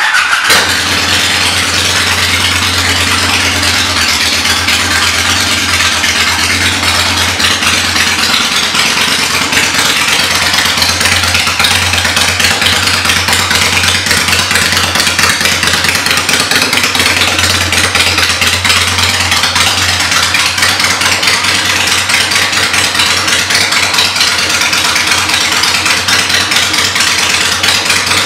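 Honda Shadow VLX's 583 cc V-twin engine running steadily at idle through aftermarket exhaust pipes.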